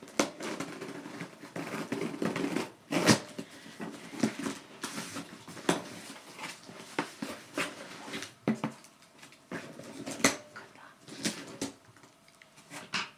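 Packaging being handled up close: irregular crinkling and rustling with sharp crackles and taps, the loudest about three seconds in and again about ten seconds in.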